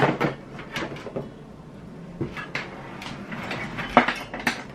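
Plastic knocks, clicks and rustling of power-supply cables and their connectors being pushed into motherboard sockets inside a PC case, with a handful of sharp knocks scattered through, the loudest about four seconds in.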